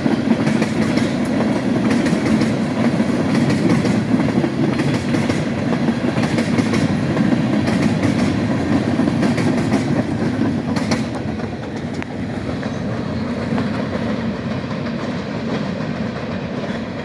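Western New York & Pennsylvania Railroad freight train rolling past, a steady rumble with wheels clicking over rail joints. The clicking thins out and the sound drops a little from about eleven seconds in.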